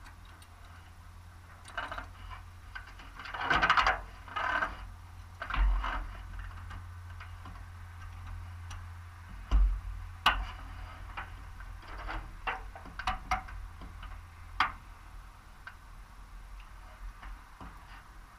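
Scattered clicks, knocks and short rustles of a pilot handling gear in a light aircraft's open cockpit, over a faint low steady hum. The loudest are a rustle about four seconds in and sharp clicks near ten and fifteen seconds in.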